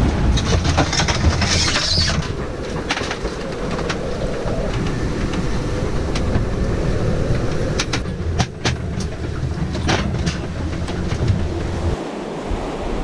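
Steady rumble of gale-force wind and waves heard through a sailboat's hull, with scattered clicks and knocks in the cabin, several in the first few seconds and a cluster about two-thirds of the way through.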